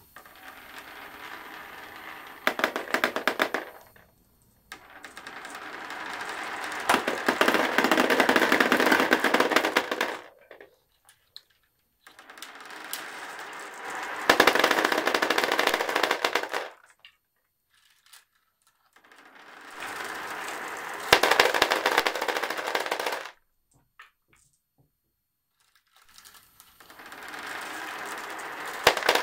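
Glass marbles rolling down a wavy marble-run track in batches and clattering into a plastic toy dump truck's bed, about five times over. Each batch starts as a rising rolling sound and turns into a dense, rapid clatter, then stops suddenly.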